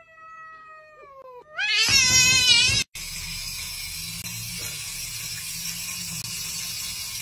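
A cat yowling: a long falling yowl fades away, then a second loud, wavering yowl about two seconds in that cuts off abruptly. After it a steady hiss with a low hum runs on.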